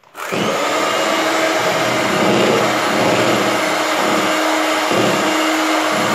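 Electric hand mixer switched on and running steadily at speed, its beaters whipping cream in a bowl.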